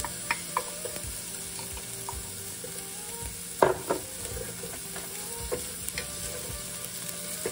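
Chopped red onions and garlic sizzling in hot coconut oil in a nonstick frying pan while a wooden spatula stirs them, with scattered scrapes and clicks and one louder knock a little past halfway.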